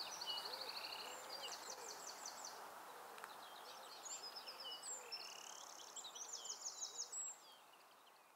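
Songbirds singing over a steady outdoor hiss: a mix of fast, high trills and short chirps from several birds, with a few faint lower calls under them. The sound fades down near the end.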